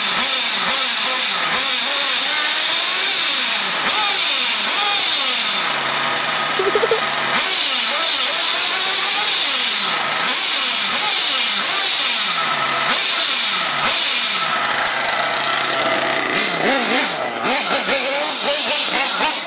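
1/8-scale Kyosho MP9 TKI3 nitro buggy's small glow engine running on a stand, its pitch rising and falling every second or two with repeated throttle blips while the carburetor needle is being adjusted. Near the end the sound changes as the buggy runs on the ground.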